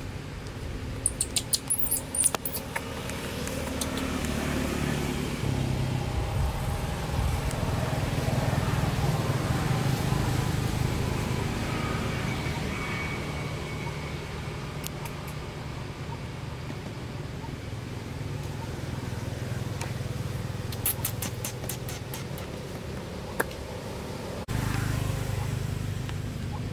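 Steady low hum of a motor vehicle engine running, swelling over a few seconds and then slowly fading. A quick cluster of sharp clicks sounds about a second in, and a few more come near the end. The hum jumps louder abruptly shortly before the end.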